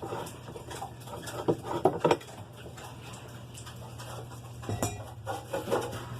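Metal clinking and clattering as the loosened basket nut and a homemade tube socket wrench are handled and lifted off the washing machine's basket shaft, with a few sharp clinks about one and a half to two seconds in and again near five seconds.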